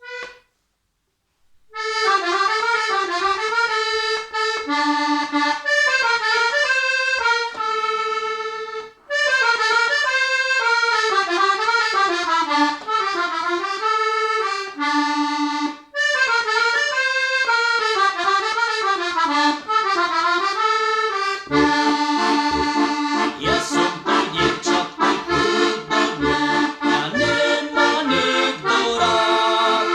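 Heligonka, a Slovak diatonic button accordion, playing a folk-song melody alone in short repeated phrases. About two-thirds through, a pulsing bass-and-chord accompaniment comes in under the tune.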